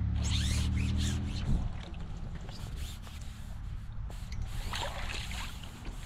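Water splashing as a small fish is drawn across the surface and scooped into a landing net, with a stronger burst of splashing about five seconds in as the net comes out of the water. A low steady hum stops about a second and a half in.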